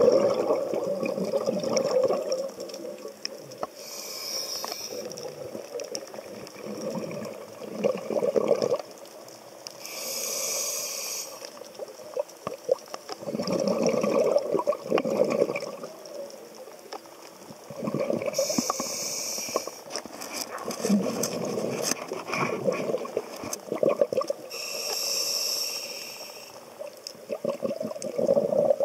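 A scuba diver breathing through a regulator, heard underwater: a short hiss of inhalation every six or seven seconds, alternating with longer gurgling rushes of exhaled bubbles.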